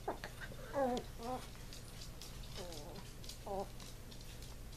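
Two small dogs, a chihuahua among them, play-wrestling: several short whiny growls and whimpers, some wavering and one falling in pitch, with faint scattered clicks.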